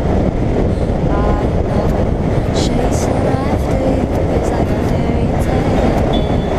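Heavy wind rush over a helmet-mounted camera at highway speed, with the Royal Enfield Continental GT's single-cylinder engine running steadily underneath.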